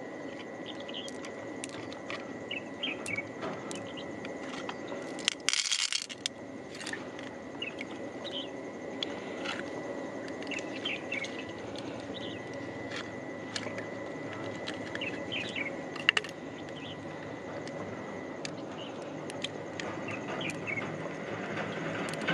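Birds chirping over a steady, thin, high tone, with small clicks as pearls are picked out of freshwater mussels and set down in an open shell. There is a brief rush of noise about five seconds in.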